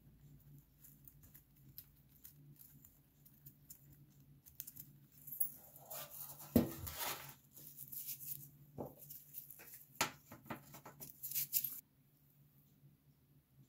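Faint clicks and scratches of small metal parts being handled: a metal pick working at a tiny metal pencil sharpener. One louder knock comes about six and a half seconds in, and the small sounds stop about twelve seconds in, over a low steady hum.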